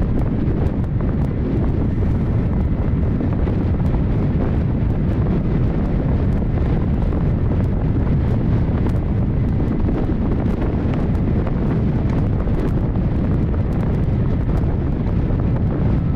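Strong wind buffeting the microphone in a loud, steady low rumble, over the rush of choppy water breaking and foaming along the hull of a sailing ship under way.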